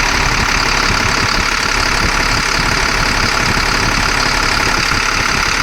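An engine running steadily, with a loud, even mechanical noise.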